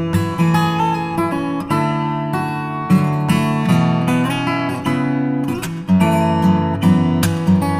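Background music: acoustic guitar strumming and picking over a bass line, with frequent note changes.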